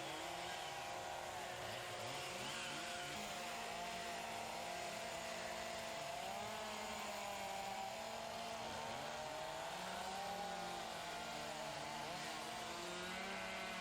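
Several two-stroke chainsaws running together as they carve wood, their engine pitches wandering up and down independently.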